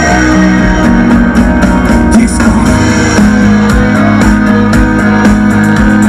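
Live band playing loudly without singing: strummed acoustic guitar with violin and a steady drum beat.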